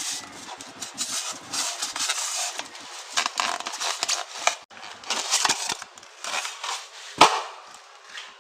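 Handling noise: irregular rubbing and scraping with scattered light knocks, and one sharp knock about seven seconds in, the loudest.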